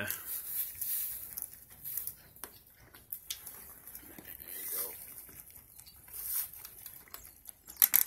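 Goats nibbling feed pellets from a hand and shuffling in straw bedding: scattered soft rustles, crunches and clicks.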